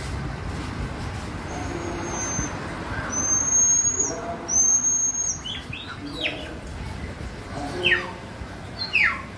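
Common marmoset calling: three long, high, level whistles (phee calls) in the first half, followed by several short falling chirps in the second half.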